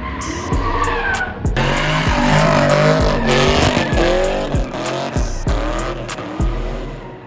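Drifting cars: engine revs rising and falling with tyre squeal, mixed with background music with a steady beat. The sound changes abruptly about a second and a half in.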